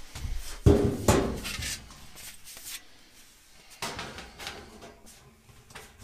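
Sheet-aluminium fuel tank and its formed end piece knocking and rattling together as the end is pushed in and test-fitted. Two loud knocks come about a second in, followed by a short rattle, and softer knocks come near the middle.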